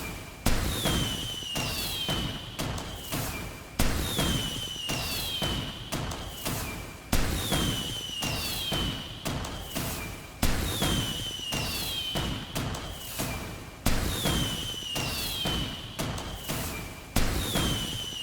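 Fireworks going off: a sharp bang about every three seconds, each followed by crackling and a whistle that falls in pitch, the pattern repeating evenly.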